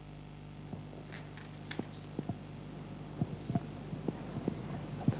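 Steady low electrical hum with scattered soft knocks and clicks, about one or two a second, coming more often toward the end.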